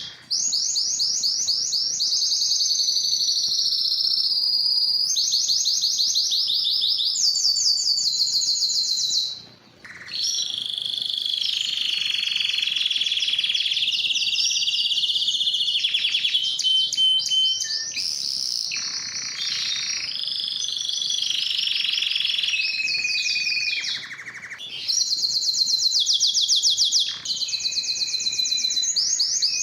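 Spanish timbrado canary singing a long, continuous song of fast rolling trills and held notes, with a short break about nine seconds in.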